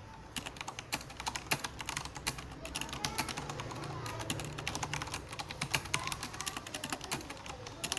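Typing on a Corsair Strafe mechanical keyboard with Cherry MX Red linear switches: a rapid, irregular run of key clicks and clacks, with a short pause near the start.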